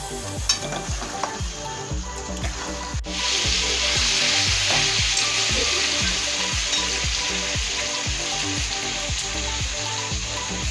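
Mutton pieces frying in oil in a kadai, sizzling steadily as they are stirred with a metal spatula; the sizzle starts abruptly about three seconds in.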